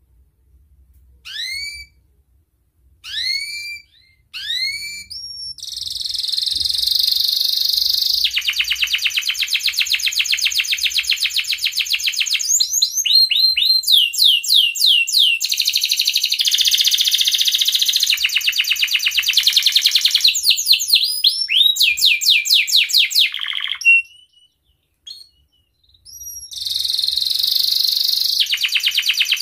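Domestic canary singing. First come a few separate rising 'cuit' call notes, then about five seconds in it breaks into long, fast trills and rolls of rapidly repeated notes. The song is a male in breeding condition, 'gacor' and 'birahi', calling out. It stops briefly near the end before trilling again.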